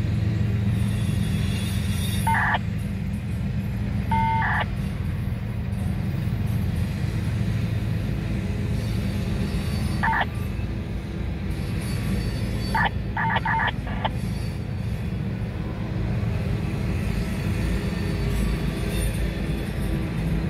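Loaded autorack freight cars rolling past with a steady low rumble, broken by a few short, high squeals.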